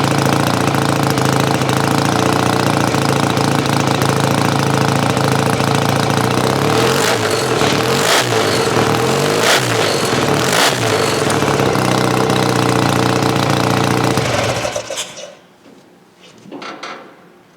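1968 BSA Lightning A65's 650 cc parallel-twin engine idling steadily, then revved four times in quick blips before settling back to idle. It shuts off suddenly near the end.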